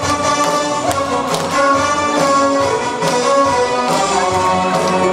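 Instrumental backing music with brass and strings, playing over a hall's loudspeakers, with no singing. The audience is clapping along.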